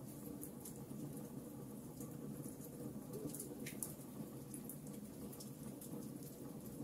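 Wood fire burning in a fireplace: a steady low rush from the flames with frequent small crackles and pops from the burning logs.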